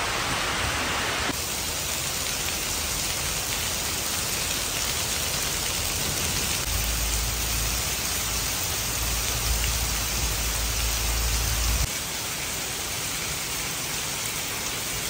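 Steady heavy rain falling on paved ground, with a low rumble for a few seconds in the middle.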